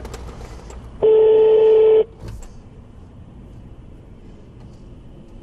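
Brazilian telephone ringback tone: the called line ringing with no answer. A single steady one-second ring at one low pitch sounds about a second in, part of a one-second-on, four-seconds-off cadence.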